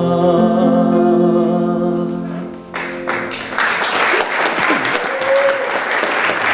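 The closing chord of a song for baritone and piano rings out and fades. About three seconds in, audience applause breaks out and continues.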